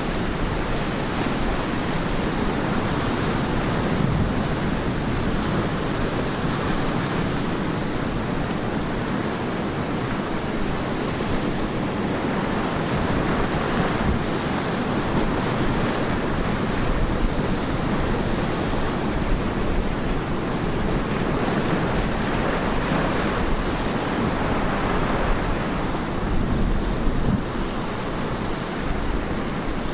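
Ocean surf breaking on the beach, a continuous dense wash of waves with only small swells in level, and some wind buffeting the microphone.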